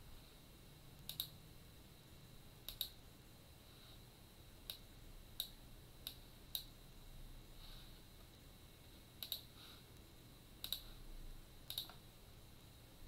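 Computer mouse buttons clicking: about a dozen short, sharp clicks spread through, several of them in quick pairs like double-clicks, over faint room tone.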